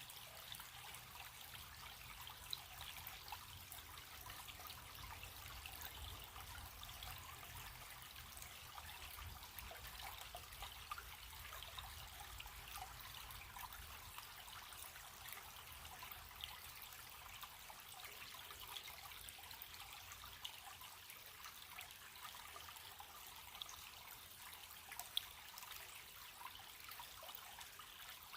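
A small stream trickling steadily, with scattered light drips and splashes; faint overall.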